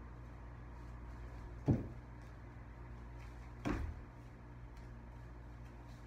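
Bare feet landing on a hardwood floor in jumps: two dull thuds about two seconds apart, the first the louder.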